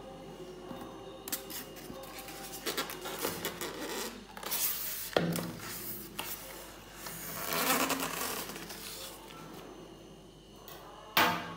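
Unboxing noise: plastic wrap crinkling and a styrofoam packing tray scraping and rubbing against the cardboard box, in irregular bursts, with one short loud scrape near the end.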